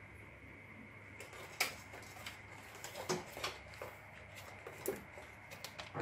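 Faint scattered clicks and light taps, the clearest about a second and a half in and near three and five seconds, over a low steady hum.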